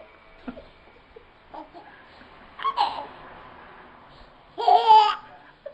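A baby laughing in a few short bursts, the loudest near the end.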